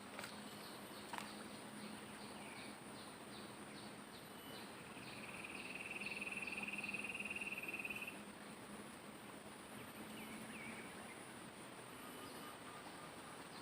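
Insects chirping by a riverside: a steady high-pitched insect drone, with a louder buzzing trill that lasts about three seconds in the middle.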